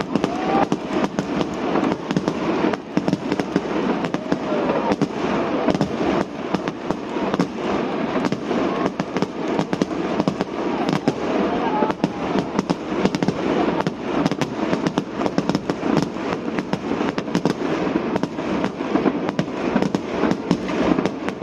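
Fireworks going off continuously: a dense, rapid stream of pops and crackles over a steady rumble of bursts.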